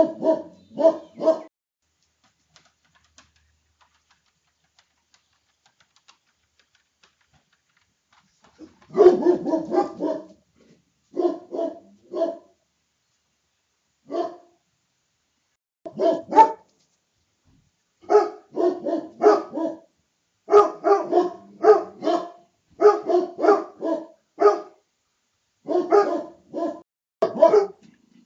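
Dog barking in quick runs of short barks, falling silent for several seconds after the opening barks, then barking again in repeated bouts.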